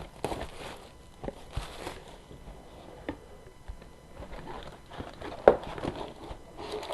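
Cardboard trading-card box and its foil packs being handled as the box is opened and emptied: rustling with scattered taps and knocks, the sharpest knock about five and a half seconds in.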